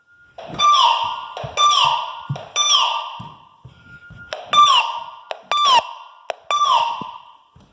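Fire alarm sounders on a Honeywell Vista 20P alarm system going off together in the temporal-three evacuation pattern: three beeps about a second apart, a pause, then three more. Several units overlap slightly out of step, and some of the tones fall a little in pitch.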